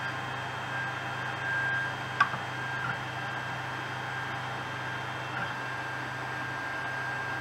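Powered-up Ender 3 Pro 3D printer running steadily, with a low hum and a thin high whine that comes and goes at first and then holds steady while an axis is jogged from its menu. A single sharp click about two seconds in.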